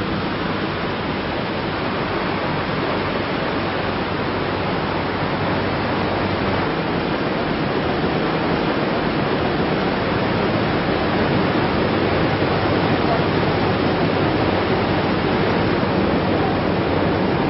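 River water rushing steadily over a weir, an even hiss-like roar with no breaks, growing slightly louder toward the end.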